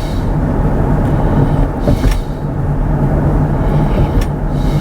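Steady road and tyre rumble inside the cabin of a moving Kia EV6 electric car, with a light knock about two seconds in.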